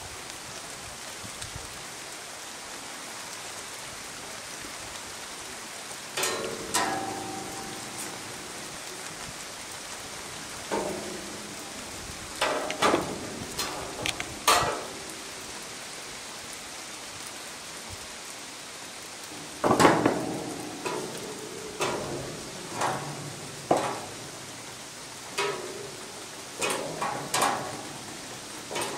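Steady rain-like hiss, with a scattered series of sharp knocks and clacks from about six seconds in, some ringing briefly; the loudest comes about two-thirds of the way through.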